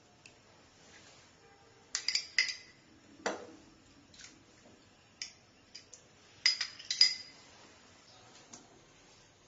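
A metal spoon clinking and knocking against a container and a cooking pot while raw chicken pieces are spooned in. There are a few sharp clinks about two seconds in, a duller knock just after, and another cluster of clinks near seven seconds.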